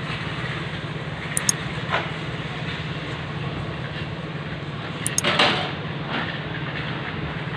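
Steady low mechanical hum, like an engine running at idle, with a few light clicks and a short louder clatter about five seconds in.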